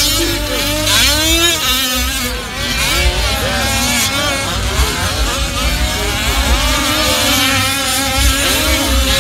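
Several 1/5-scale four-wheel-drive RC race trucks' small two-stroke engines revving and easing off as they race, their pitches rising and falling and overlapping one another.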